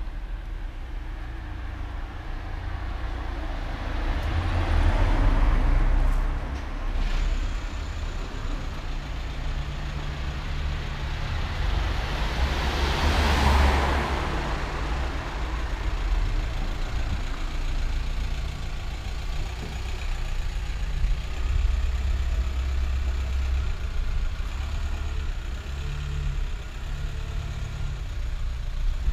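Street ambience with two cars passing by on the road, one about five seconds in and a louder one around thirteen seconds in, each swelling and then fading, over a steady low rumble.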